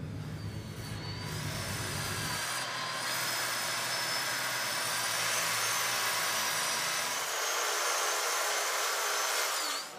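Handheld electric saw running as it cuts through yellow foam, with a high motor whine that wavers in pitch; it stops shortly before the end.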